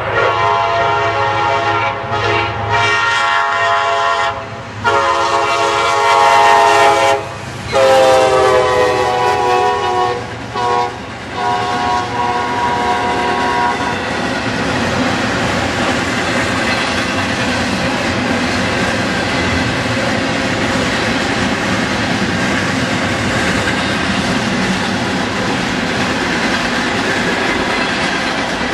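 CSX freight train led by an SD60I diesel locomotive sounding its several-note horn in a series of blasts with short breaks; the horn's pitch drops as the locomotive passes, about eight seconds in. After the horn stops, a long string of intermodal container cars and refrigerated boxcars rolls past with a steady rumble and wheel clatter.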